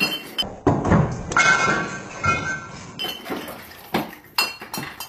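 Clatter and clinking of small objects, cans and bottles, being knocked off a shelf and hitting the floor, with a run of sharp knocks.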